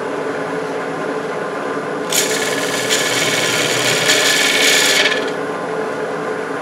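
Wood lathe running steadily while a turning gouge skims the cured epoxy coating off the urn's foot back to bare wood. About two seconds in, the cut bites and gives a loud hiss of shavings for about three seconds, then eases off to the lathe's hum.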